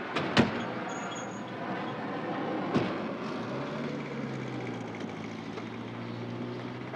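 Steady outdoor traffic noise with two sharp thuds: a loud one about half a second in and a smaller one near three seconds. From about three and a half seconds a steady low hum joins.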